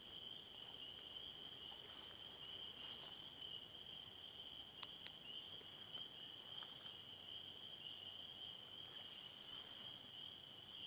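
Faint, steady trilling of a chorus of crickets, one unbroken high-pitched drone, with a single short click about five seconds in.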